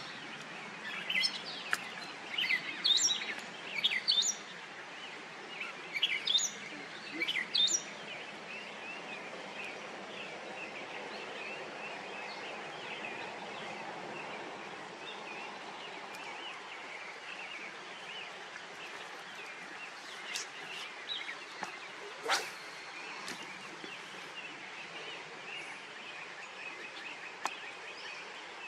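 Small birds chirping in quick runs of short calls for the first eight seconds or so, over a steady outdoor hiss. A single sharp click about twenty-two seconds in.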